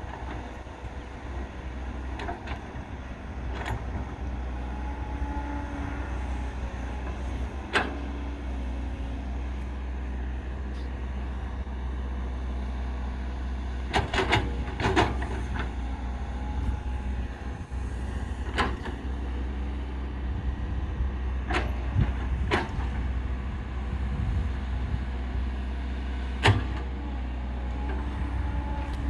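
CAT tracked excavator's diesel engine running steadily as it digs soil, with sharp metallic knocks and clanks from the bucket and arm every few seconds. The knocks come in a cluster about halfway through, with a strong one near the end.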